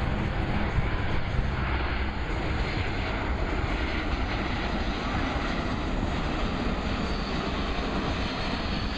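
Boeing C-17 Globemaster III's four Pratt & Whitney F117 turbofan engines in flight: a steady, loud jet engine noise, with a faint rising whine near the end.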